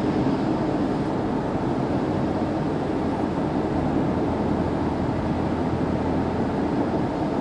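Steady road noise inside a car cruising at highway speed: an even rumble of tyres and wind with a low engine hum underneath.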